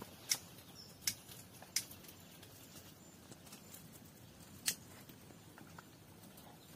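Four sharp clicks, three within the first two seconds and one a little past the middle, with fainter ticks between them over a low steady hiss.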